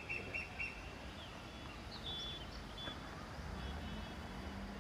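Outdoor ambience of birds chirping: a quick run of about five short chirps at the start, then scattered short calls around two seconds in, over a low rumble. A steady low hum comes in near the end.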